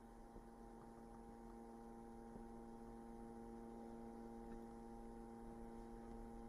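Faint, steady electrical mains hum with several overtones. It grows slightly louder as the amplifier's sine-wave test signal is turned up.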